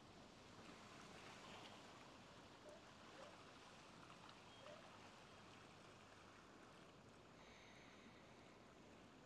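Faint ocean waves washing on a beach: a soft, even hiss that swells slightly a second or two in.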